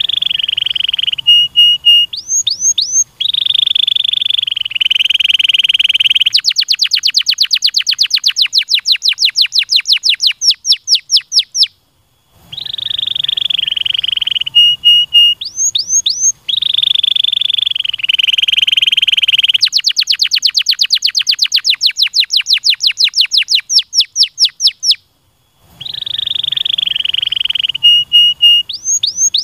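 Domestic canary singing a loud, continuous song: rolling trills, a few quick rising whistles, then a long run of rapid repeated notes at about five a second. The same song phrase comes round again after a brief pause about twelve seconds in, and again near the end.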